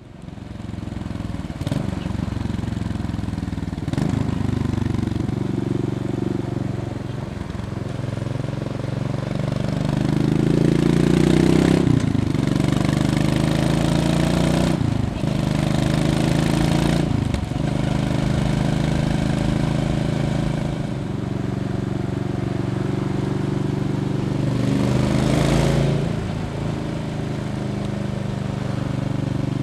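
Suzuki LS650 Savage's big single-cylinder four-stroke thumper running through a Silvertail aftermarket exhaust. The engine note climbs and then drops sharply several times, mostly in quick succession around the middle, as the bike is ridden up through the gears.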